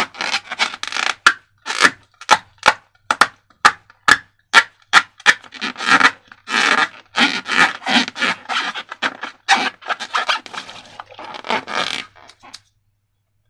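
Slime and rubber balloons being handled and worked by hand: a run of short rubbing and scraping strokes, two or three a second, giving way about halfway through to longer, denser squishing rubs. The sound stops shortly before the end.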